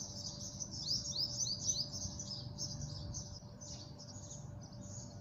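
Small birds chirping in a rapid, continuous run of short chirps, several quickly rising ones bunched about a second in, over a faint steady low hum.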